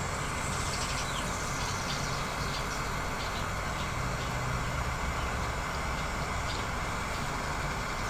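Small handheld gas torch burning steadily, its flame heating the end of a copper cable lug before soldering, with a few faint crackles.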